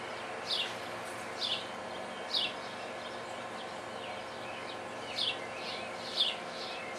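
A bird repeating a short, downward-sliding chirp about once a second, pausing for a couple of seconds midway, over a steady background hum.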